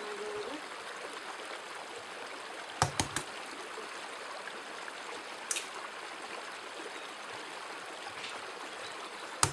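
Raw eggs being cracked against the rim of a ceramic plate: a quick cluster of about three sharp taps about three seconds in, a single tap a little later, and two more near the end. A steady hiss runs underneath.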